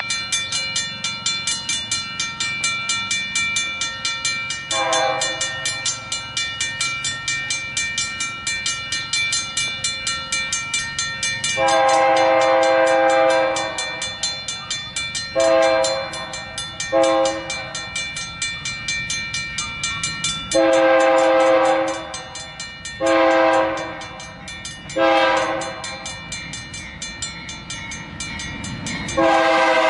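Railroad crossing bell ringing steadily while an approaching BNSF diesel locomotive sounds its horn for the crossing: one short blast about five seconds in, then a series of long and short blasts growing louder as it nears, the last right at the end.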